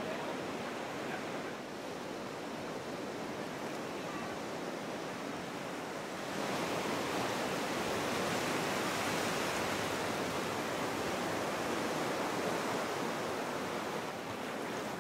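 Ocean surf washing on a beach, a steady rushing noise that gets louder about six seconds in.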